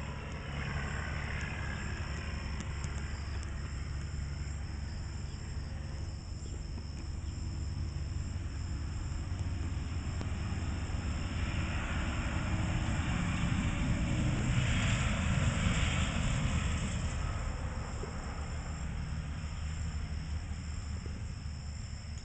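Steady high-pitched chorus of crickets and other insects, with the low rumble of a passing vehicle that swells to its loudest about two-thirds of the way through, then fades.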